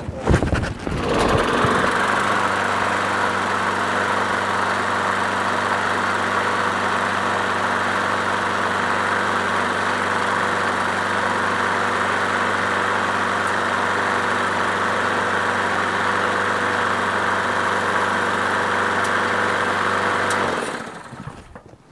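Briggs & Stratton Quantum single-cylinder engine on a Craftsman push mower pull-started from cold. It catches on the first pull and runs at a steady speed, then is shut off near the end and dies away.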